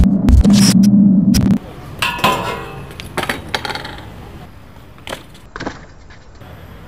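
A loud humming intro sound with clicks cuts off about a second and a half in. Then a BMX bike clatters onto concrete in a crash, with a ringing metallic clang, followed by a few sharp clinks and knocks of the bike's metal parts.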